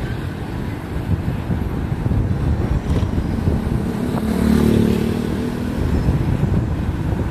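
Wind rushing over the microphone and a motorcycle engine running while riding. Another motorcycle passes close by about halfway through, its engine briefly the loudest sound.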